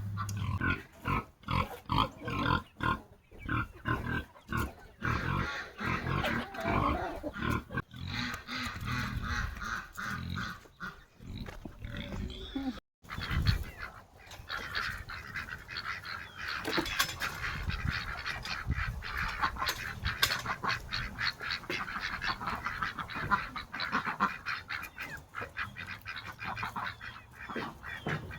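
Farm poultry calling: ducks and geese honking and quacking over and over. The sound drops out briefly about 13 seconds in.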